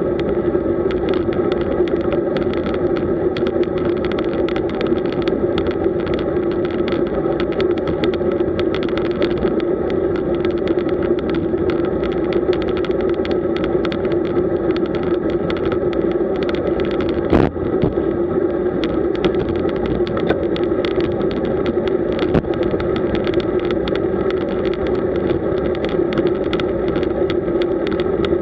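Steady rush of wind and tyre noise from a road bike riding at about 37 km/h, picked up by a camera mounted on the bike, with one brief knock about seventeen seconds in.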